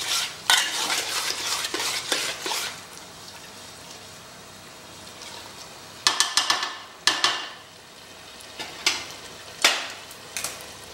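A steel spatula stirring and scraping a thick onion-tomato masala in an aluminium pot while it sizzles, as the masala is fried down (bhuna). The stirring is heavy for the first few seconds, then only the sizzle goes on, then come a burst of scrapes and knocks against the pot about six seconds in and a few single knocks near the end.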